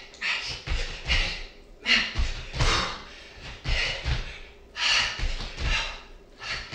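A woman's hard, rhythmic exhales while doing dumbbell press jacks, about one a second, with dull thuds of her feet landing on a wooden floor.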